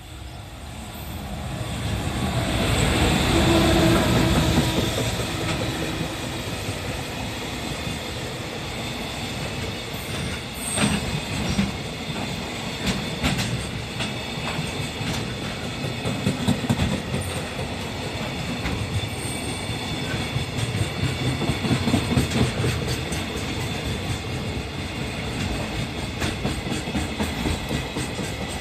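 Freight train hauled by an EF210 electric locomotive passing, loud and rising to a peak about three to four seconds in. The wagons' wheels then clatter over the rail joints in a repeated clickety-clack for the rest of the passage.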